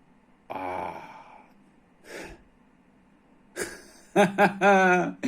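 A man's wordless vocal exclamations of delight: a falling sigh-like "ah" about half a second in, a short breath, then a quick run of loud "oh" cries near the end.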